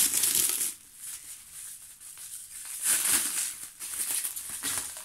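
Clear plastic packaging film and bubble wrap crinkling as it is handled and pulled off a parcel, in sudden bursts: loudest at the start and again about three seconds in, with a shorter one near the end.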